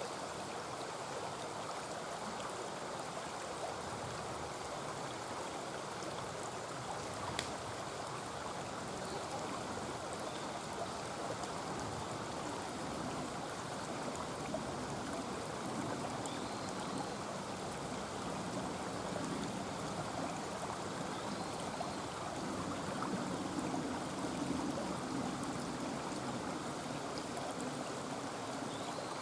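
Mountain stream rushing steadily over rocks, with a few faint pops from a campfire, the sharpest about seven seconds in.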